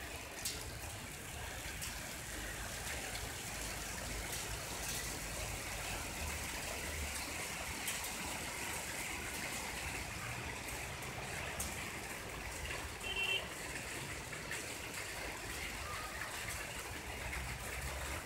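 Heavy rain mixed with small hail falling on wet paving and grass: a steady hiss scattered with sharp ticks of hailstones striking, over a low rumble.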